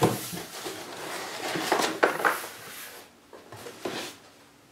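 A large cardboard box being opened by hand: its flaps scrape and bend, with a few sharp knocks and a rustle of packing paper, growing quieter after about three seconds.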